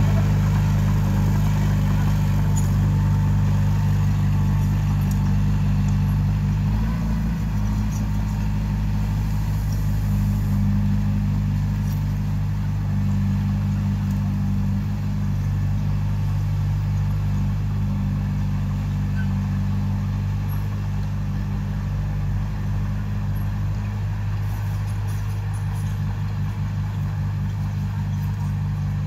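Diesel engine of earthmoving machinery running steadily, with a brief change in its note about seven seconds in.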